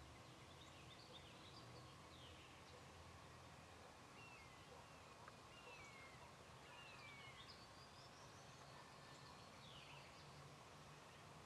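Faint songbirds chirping and calling, a scatter of short, mostly falling notes over a quiet, steady outdoor hush.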